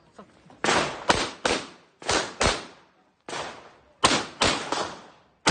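Glock 19X 9mm pistol fired in quick succession, about eight shots, mostly in close pairs, each followed by a short echoing decay.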